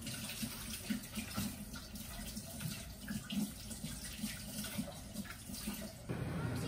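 Kitchen tap running into a sink, with small irregular splashes.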